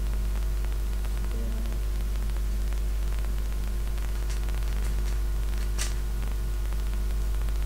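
Steady low electrical hum and hiss from a weak recording setup, with a few faint clicks of a 3x3 speedcube's layers being turned; one click late on is sharper than the rest.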